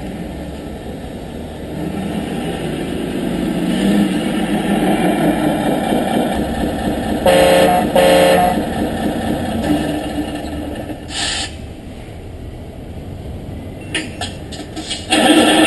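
Electronic sound module of a 1/14-scale RC model bus playing a simulated diesel bus engine, with two short horn blasts about seven seconds in. A louder sound cuts in just before the end.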